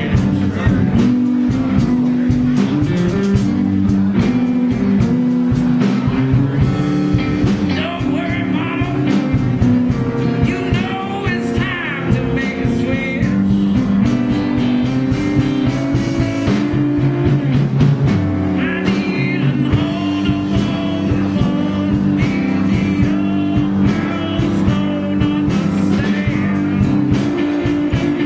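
Live blues band playing a number on electric guitars, electric bass, keyboards and drum kit, with a steady beat and a lead line bending in pitch.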